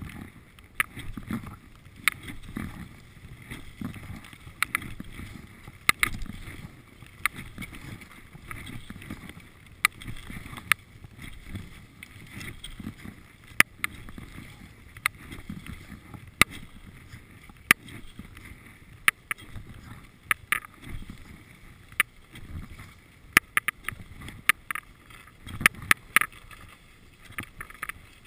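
Skis sliding and scraping over packed snow on a downhill run: a low rumble that swells and fades every second or two, with frequent sharp clicks and clacks.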